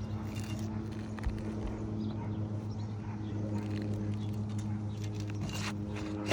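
A steady low mechanical hum with a few light taps and scrapes scattered through it, typical of hand tools working loose asphalt shingles and their nails.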